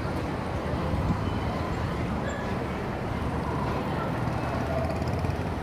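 Steady rumble of heavy city traffic: many vehicle engines and tyres blending into one continuous noise, with faint distant voices mixed in.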